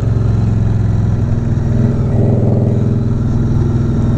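Indian Scout Bobber's V-twin engine and exhaust running steadily while cruising, heard from the rider's seat, opening up slightly about two seconds in.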